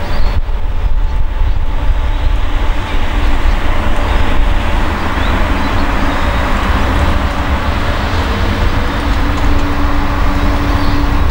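The Ghan passenger train's stainless-steel carriages rolling slowly past: a steady heavy rumble of wheels on the rails, with a faint steady tone coming in during the second half.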